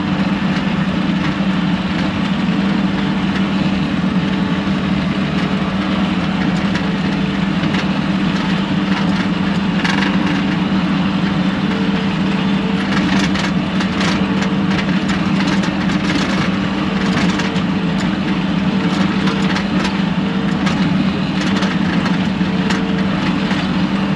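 Bobcat T630 tracked skid steer's diesel engine running steadily under load while back-dragging dirt, with scattered sharp cracks and clatter from the machine working the ground.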